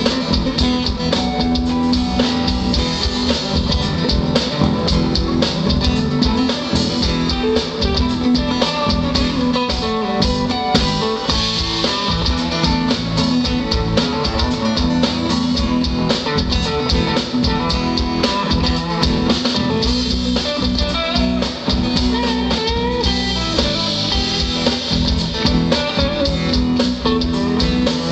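Live rock band playing an instrumental passage: acoustic and electric guitars over a drum kit, amplified through the stage PA.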